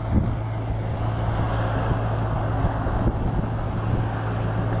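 Steady road and wind noise from riding a bicycle along a highway, with a constant low hum underneath.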